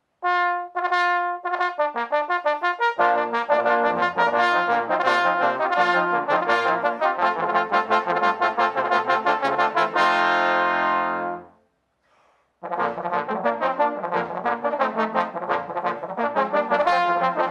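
Multitracked brass ensemble, mostly trombones, playing a fast, rhythmic arrangement: a few higher lines alone for about three seconds, then the full group with low bass parts joins in. The playing stops briefly about twelve seconds in and starts again.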